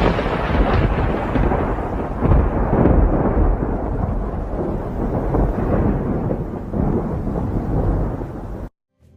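Loud rolling rumble of thunder that slowly fades and cuts off suddenly near the end.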